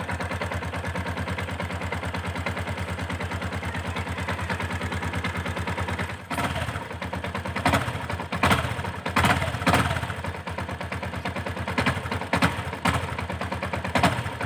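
Yamaha Sniper FI 150's liquid-cooled single-cylinder four-stroke engine running on its newly fitted spark plug: it idles with an even rapid beat, then is revved in short blips from about six seconds in.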